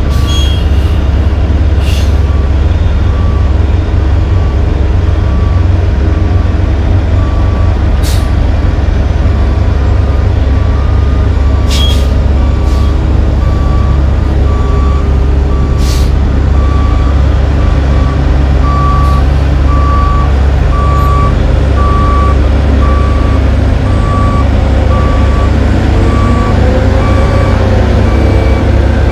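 Heavy diesel paving equipment (dump truck, asphalt paver and rubber-tyred roller) running steadily, with a back-up alarm beeping about once a second throughout. A few short sharp hisses cut in. Near the end an engine revs up and back down as the dump box is raised to feed the paver.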